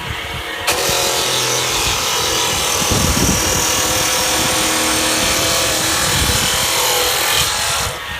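Door-lock boring machine (MXZ260X) cutting into wood: a loud cutting noise starts under a second in over the machine's running hum, holds steady, and stops sharply near the end.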